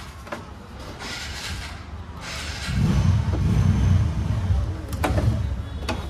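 Hands working wiring connectors loose from a scooter's harness: rustling of wires and plastic, then two sharp clicks near the end as the couplers unclip. A low rumble, the loudest sound, runs through the middle seconds.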